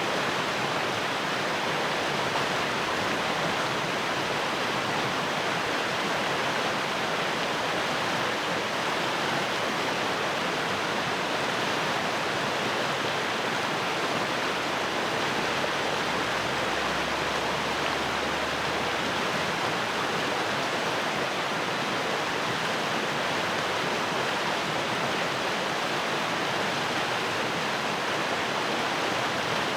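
Fast-flowing stream rushing over rocks, a steady, even rush of water.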